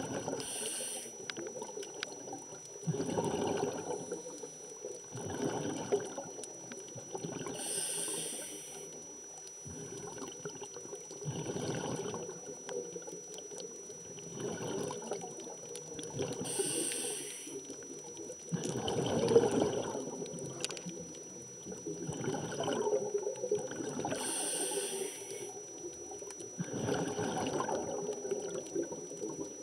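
Scuba diving underwater: short hissing inhalations through a regulator about every eight seconds, with bubbly gurgling of exhaled air between them.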